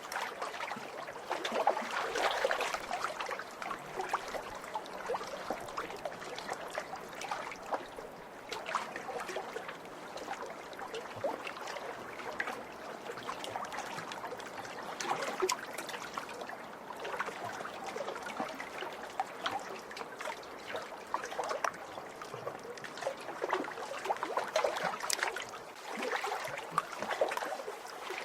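Small lake waves lapping and splashing against the shore: a continuous irregular sloshing with many small splashes, swelling now and then.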